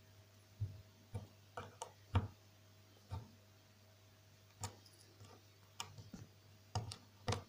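Small flat-blade screwdriver prying at the seam of a plastic microwave oven high-voltage microswitch case: about a dozen short, sharp plastic clicks and snaps at uneven intervals as the case is worked open.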